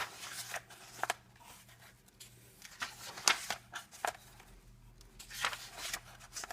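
Pages of a medium-weight paper coloring book being turned one after another, about ten short papery swishes and flicks spread over several seconds, with a faint steady hum underneath.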